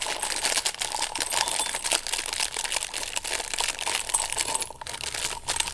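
Loose beads clicking and rattling against each other, with a dense crackle, as they are picked off a broken beaded strand whose plastic cord has gone brittle and cracked.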